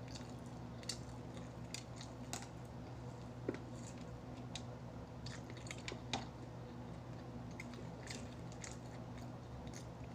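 Close-miked eating sounds: chewing and biting with scattered short crunches and wet clicks, over a steady low hum.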